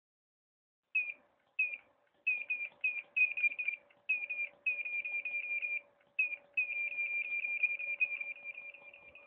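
Profoto D1 studio flash being fired over and over in quick succession, each shot giving a short high chirp, a few a second, with irregular gaps where it hesitates; a faint steady hum runs underneath. The uneven firing is the delay and misfiring that the technician puts down to a faulty trigger module.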